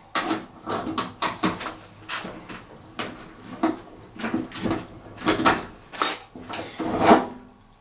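Irregular clinks and knocks of an adjustable wrench working a transport bolt on the sheet-metal back of a washing machine.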